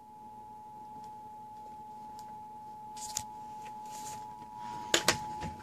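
Emergency Alert System attention signal: the steady two-tone alert (about 853 and 960 Hz together), growing louder over the first second and then holding, played through a television or radio speaker. A few sharp clicks sound over it, the loudest about five seconds in.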